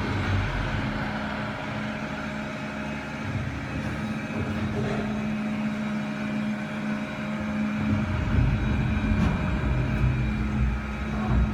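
CNC saw-blade sharpening machine for carbide-tipped circular saw blades running, a steady motor hum with a low rumble. The rumble drops away for a few seconds mid-way and comes back stronger about eight seconds in.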